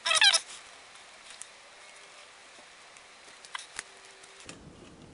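A brief, high chirping squeak in the first half second, then a few light, sharp clicks of small metal knife parts and a precision screwdriver being handled during reassembly of a folding knife.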